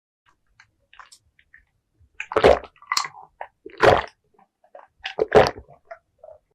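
A person gulping down a drink: three loud swallows, about a second and a half apart, with small wet clicks of the mouth and throat around them.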